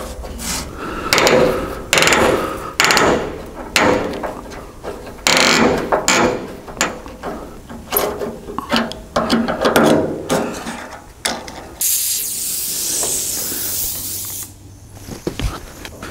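Flat-blade screwdriver turning seized, rusty slotted bolts out of a truck's door-hinge pocket, the blade and threads scraping and creaking in short, irregular strokes. A steady hiss lasts about two seconds near the end.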